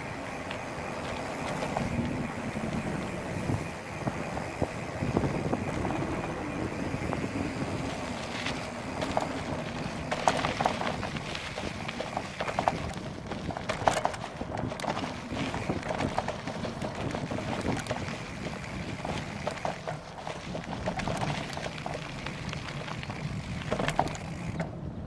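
Wind rushing over the camera microphone on a bicycle ridden into a headwind. Scattered sharp knocks and rattles come through as the bike jolts along a rough trail, more of them in the second half.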